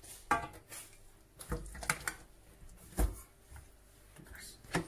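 A plastic slotted spoon knocking against stainless steel pots and bowls as pieces of boiled beef are lifted out of their stock and dropped into a pot of tomato stew: about five separate taps and clunks, the loudest about three seconds in.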